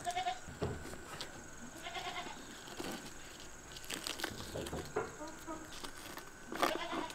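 A goat bleating a few short times in the background, with scattered clicks and rustles of wire being twisted around a roasted carcass on a wooden spit.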